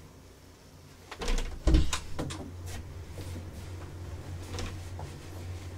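A room door being unlatched and opened, with a cluster of knocks and clatters as a guitar case and bags are carried through it, loudest a little under two seconds in, then a few lighter knocks over a low steady hum.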